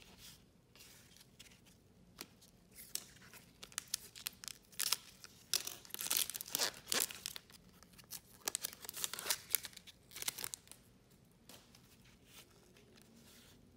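A trading-card pack wrapper being torn open and crinkled by hand, in a run of short crackling rips that are loudest about halfway through.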